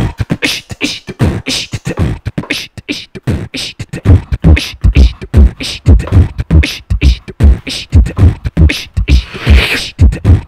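Human beatboxing through a microphone, layered live on a loop station: a fast pattern of vocal clicks and snares, joined about four seconds in by a deep kick repeating steadily.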